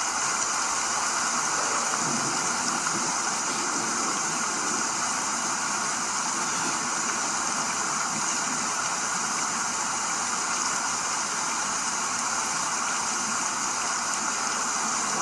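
Steady, even hiss like static or rushing water, unchanging throughout, with no speech or music.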